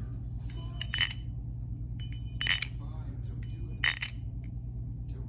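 Three sharp metal clinks with a brief ringing tail, about a second and a half apart: the steel handles of a balisong knife clacking as it is flipped or handled. A steady low hum sits underneath.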